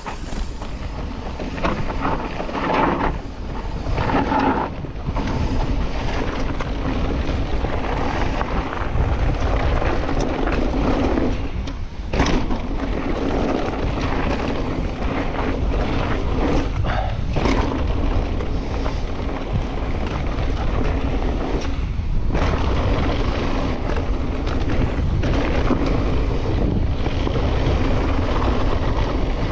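Wind rushing over the camera microphone and mountain-bike tyres rolling over a dry trail, with scattered knocks and rattles from the bike over rough ground.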